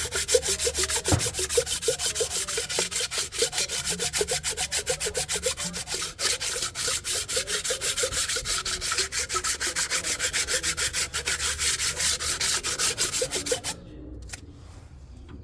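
Fast, even back-and-forth scrubbing on a removed intake manifold being cleaned of carbon, several strokes a second, stopping near the end.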